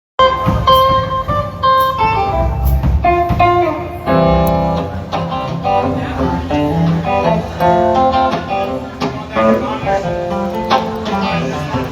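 Guitar picked during a band sound check, playing a loose run of single notes and chords with clear, sharp attacks.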